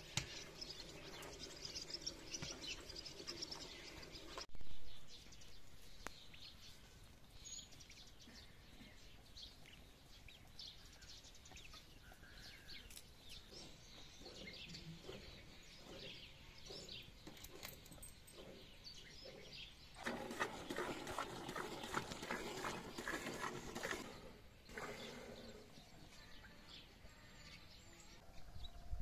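Farmyard sounds around cattle and calves being handled and hand-milked: animals shuffling on dirt, an occasional bird chirp and a sudden loud knock about five seconds in. About twenty seconds in comes a busier stretch of quick, even strokes.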